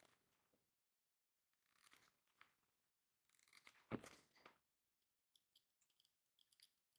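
Scissors snipping through a thin sheet in a few faint cuts, with a single sharper knock about four seconds in, followed by a run of faint small ticks as the cut piece is handled.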